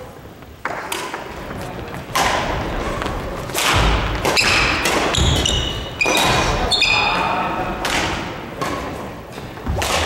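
Badminton rally: rackets striking the shuttlecock with sharp cracks at irregular intervals, feet thudding and shoes squeaking on the wooden gym floor, with the hall's echo after each hit.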